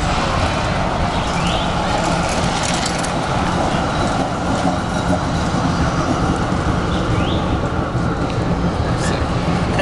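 Melbourne Z-class electric tram passing close by, a steady rumble of its wheels on the street rails.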